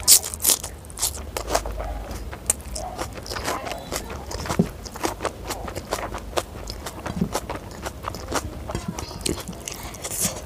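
Close-miked eating sounds of spicy Schezwan fried rice eaten by hand: irregular wet chewing and smacking clicks from the mouth, with fingers gathering rice on the plate.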